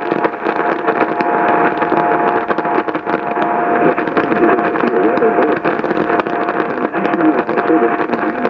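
Radio static between broadcast messages: a steady loud hiss with frequent crackles and a faint steady hum.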